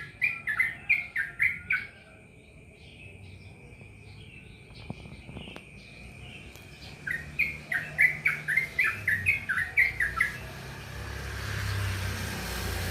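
Yellow-vented bulbul (trucukan) singing in fast, continuous chirping runs, the rapid 'ropel' style, in two bursts with a quieter pause of softer notes between them. A hiss swells near the end.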